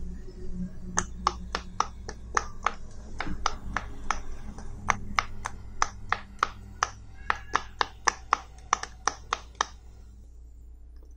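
Silicone pop-it fidget toy, its bubbles pressed in one after another by a finger: a steady run of sharp little pops, about three a second, that stops shortly before the end.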